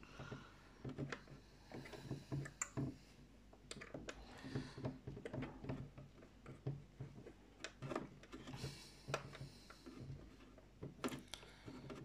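Scattered small clicks and taps of plastic parts being handled and worked on an RC model tank's hull and running gear, coming irregularly every fraction of a second to a second.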